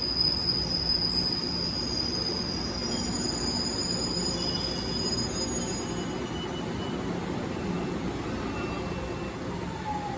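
Train moving along a station platform with a steady rumble and a high-pitched wheel squeal that fades out about halfway through.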